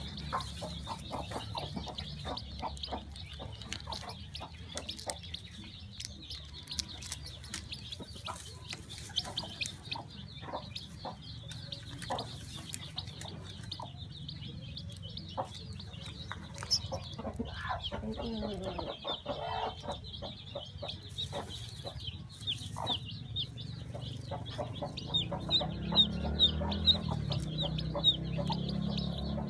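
Newly hatching chicken chick peeping, a run of short high cheeps that gets louder and more regular near the end. Over a steady low hum there are scattered small clicks and taps as the eggshell is picked open.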